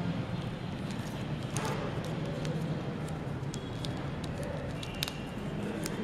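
Paper rustling and crackling in short, scattered bursts as an origami swan is folded and creased by hand, over a steady background hum.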